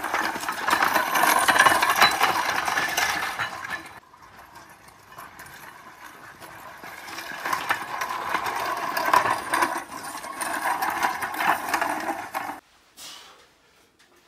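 A weight sled loaded to about 166 lb being dragged over a dirt path, scraping and rattling. It is loud for the first four seconds, drops away, then builds again from about six seconds and cuts off suddenly near the end.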